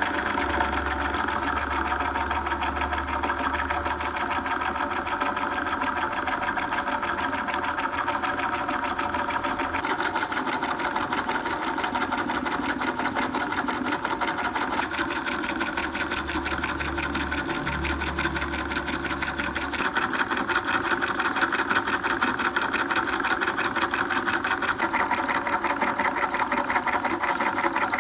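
Small homemade machine of an electric motor driving rubber belts, pulleys, flywheels and crank linkages, running at speed with a fast, even mechanical clatter and whir. It gets a little louder about two-thirds of the way through.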